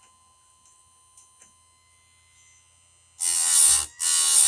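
Electric chainsaw-chain sharpener grinding cutter teeth: a quiet stretch with a few faint ticks, then about three seconds in the grinding wheel bites into the chain twice, each grind lasting a little over half a second with a brief gap between.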